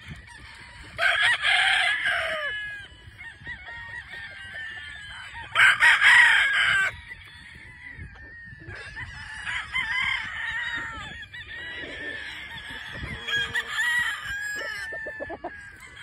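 Many gamefowl roosters crowing and clucking at once. Two loud nearby crows, each about a second and a half long, come about a second in and again around six seconds in, over steady fainter crowing and clucking from the rest of the flock.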